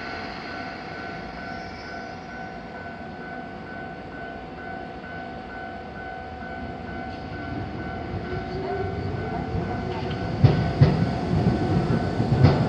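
Japanese level-crossing warning bell ringing steadily while a train approaches; the train grows louder from about two-thirds in, and near the end its wheels clack over the rail joints as it passes.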